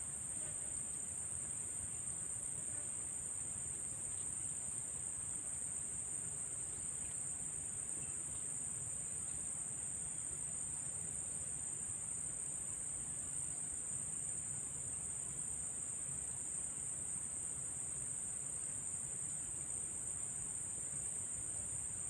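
Insects chirring in one steady, high-pitched drone, with a faint low rumble beneath.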